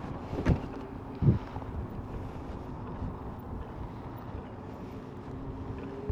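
Wind buffeting the microphone while riding an e-bike, under a faint steady motor hum. Two thumps come about half a second and a second and a quarter in.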